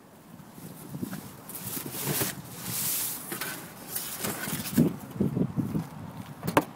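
Rummaging through a large plastic trash bin: rustling of trash and bags, then a run of knocks and clatters, and one sharp knock near the end.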